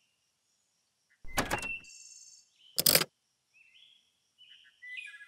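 Two short thuds a little over a second apart, then small birds chirping near the end.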